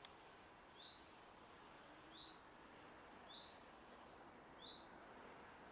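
A bird calling faintly, four short high chirps evenly spaced about a second and a quarter apart, over a quiet background hiss.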